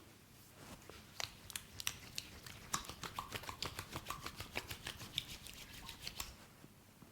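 A quick run of sharp clicks and snaps, several a second, starting about a second in and stopping about a second before the end.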